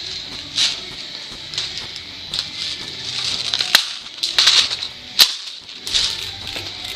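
Airsoft rifles firing scattered shots, with the sharpest cracks a little under four seconds and about five seconds in.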